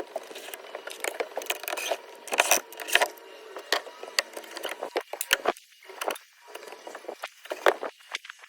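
Irregular knocks, clicks and scraping of tools chipping and prying rotten wood out of a boat's floor.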